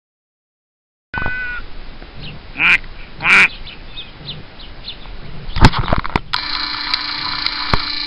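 After about a second of silence, a mallard duck quacks twice, loudly, about three seconds in. Near the end a steady mechanical whine runs for about two seconds.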